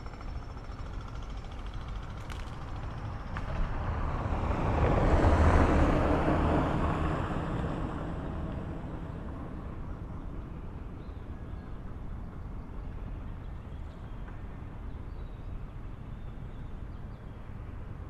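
A motor vehicle passing by, its sound swelling and then fading over about four seconds, over a steady low rumble.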